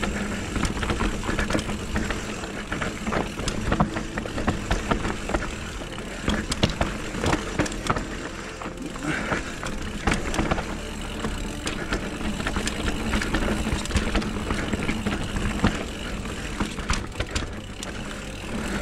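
Specialized Kenevo electric mountain bike descending a steep, rough trail: tyres rolling over dirt, with many short rattles and knocks from the bike and a constant low rumble of wind on the microphone.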